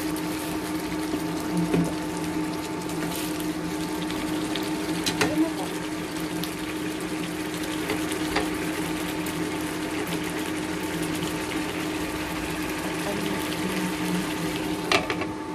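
Sauce simmering in a pan around milkfish and tofu, a steady bubbling with small pops now and then, over a steady low hum.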